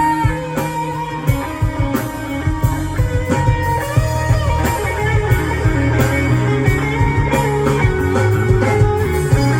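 Instrumental break in a country-rock song: electric guitar playing over bass, with a steady beat.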